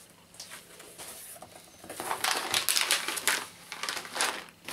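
Plastic-foil cat-treat pouch crinkling as it is handled: faint rustles at first, then a dense run of sharp crackles from about two seconds in.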